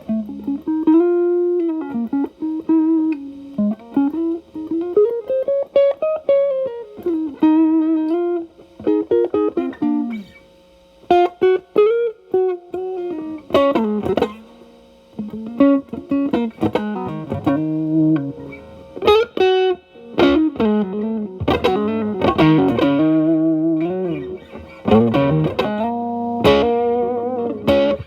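Telecaster electric guitar played through an E.W.S. Brute Drive (BD-1) distortion pedal with its boost switched on, into a Marshall Valvestate amp's clean channel. It plays improvised single-note lead phrases with string bends and vibrato, and a few double-stops and chords.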